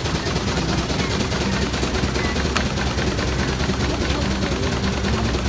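Steam traction engine running with its flywheel driving a long flat belt, plausibly to a threshing machine: a steady, rapid, unbroken clatter of exhaust beats and belt-driven machinery.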